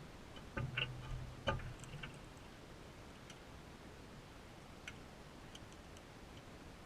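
Crimson rosellas feeding at a seed feeder close to the camera: beaks cracking seed and knocking against the feeder. A quick run of sharp clicks and knocks comes about a second in, the loudest near a second and a half, then a few faint ticks.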